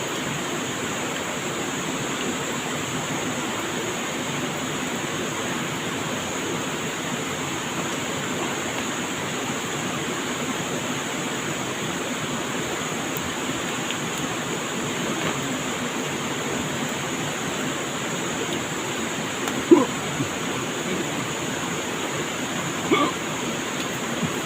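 Flowing river water rushing steadily. Two short, sharp sounds stand out near the end, about three seconds apart.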